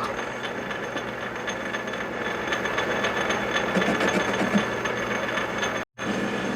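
Metalworking machine tool running steadily: a hum with a thin high whine over it, broken by a short gap near the end.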